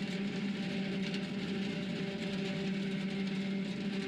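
John Deere 2038R compact tractor's three-cylinder diesel running steadily under load, driving a PTO-powered 6-foot rotary cutter (bush hog) that is mowing grass and weeds: a steady, even drone.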